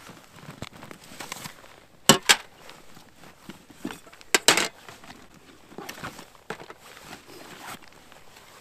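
Camp cooking gear being unpacked from a backpack: rustling and handling, with two sharp knocks about two seconds in and a short clatter of cookware a little after four seconds.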